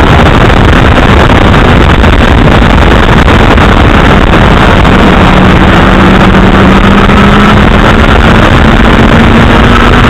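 Loud, constant wind rush buffeting the microphone of a keychain camera mounted on a 2008 Honda CBR1000RR riding at speed, with the bike's inline-four engine faintly audible beneath it, its note rising slowly in the second half.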